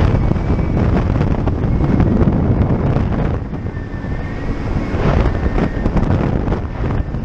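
Wind rushing and buffeting on a helmet-camera microphone in the open seat of a flexwing microlight trike in flight, rising and falling unevenly, over the drone of the trike's Suzuki 1.3-litre four-cylinder engine.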